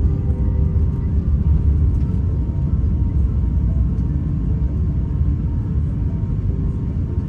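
Airbus A350-900 cabin noise: a steady low rumble of the engines and airflow heard from inside the passenger cabin.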